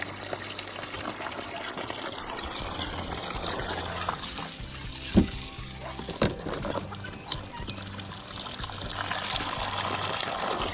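Water running and splashing into a livestock water trough as it is filled, with two sharp knocks about five and six seconds in. Background music plays under it.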